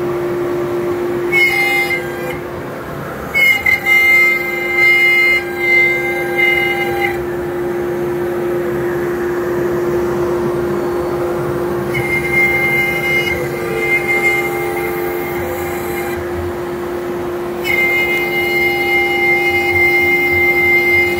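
Home-built CNC router engraving hardboard: the spindle's steady whine runs throughout over a rushing noise, and a higher, multi-toned whine cuts in and out several times as the machine moves.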